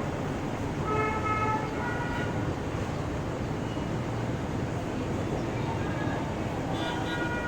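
Steady road traffic noise with vehicle horns tooting briefly a few times: once about a second in, again around two seconds, and near the end.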